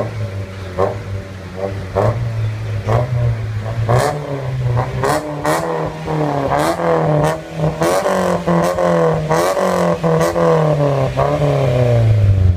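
Honda Civic EG's engine revved in repeated quick throttle blips through a Ganador full titanium exhaust, the pitch jumping up and falling back about once a second.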